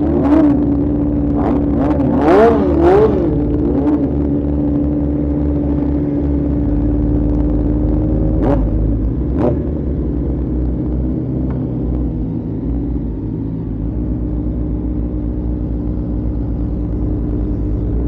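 Kawasaki ZX-4RR inline-four engine running at a steady high pitch under way, over a constant low rumble. The pitch wavers up and down a few times about two to three seconds in, and two sharp clicks come about a second apart midway through.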